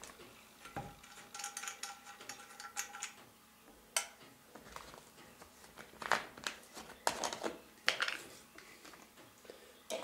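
Small metal and glass parts of a model Stirling engine's spirit burner being handled to prepare the engine for starting: scattered light clinks and sharp knocks, with a thin squeak lasting about two seconds near the start.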